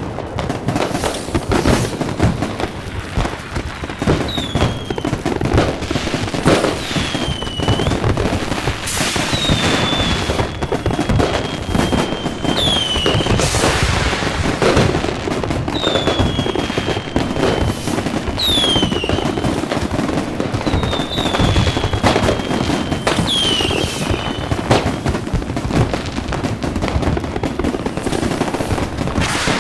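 Fireworks going off without pause: dense bangs and crackle over a low rumble. Around seven whistling fireworks cut through, each whistle falling in pitch.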